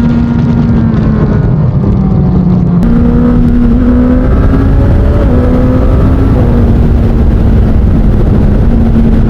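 Suzuki GSX-S1000 inline-four engine through an SC Project aftermarket exhaust, running loud and steady while riding. Its note drops a little about a second and a half in, then picks back up just before three seconds and holds.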